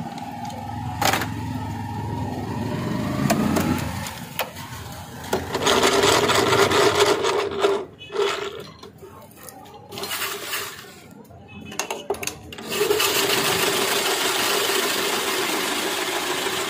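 Ice-shaving machine grating a block of ice into shaved ice: a loud, steady grinding over a machine hum. It starts about five seconds in, breaks off twice, then runs on from about thirteen seconds in. Before it starts, a few knocks and clinks as the ice block is set and clamped in the machine.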